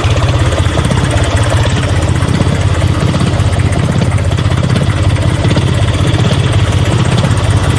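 An engine idling steadily, with a fast, even pulsing chug.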